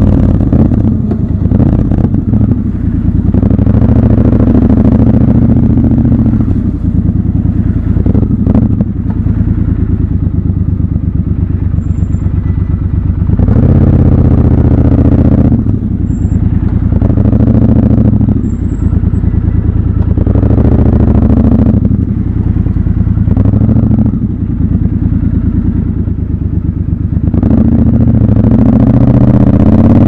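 Triumph Scrambler 1200 XC's 1200 cc parallel-twin engine running at low speed in slow traffic. Its note swells and falls back every couple of seconds as the throttle is opened briefly and shut again.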